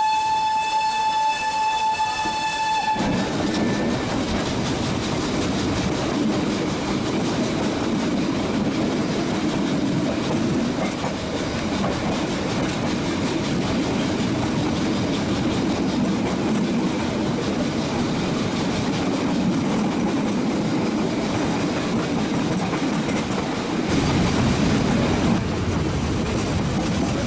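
A train horn sounds one steady held note for about three seconds. Then the running noise of the Nilgiri Mountain Railway train takes over: a steady rumble and rattle of the coaches on the metre-gauge track, getting heavier near the end.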